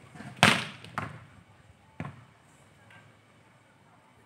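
A volleyball being struck: a loud smack about half a second in, followed by two fainter, sharp knocks about a second apart.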